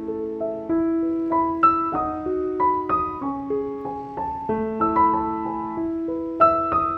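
Background piano music: a slow, gentle melody of struck notes that ring and fade, two or three a second.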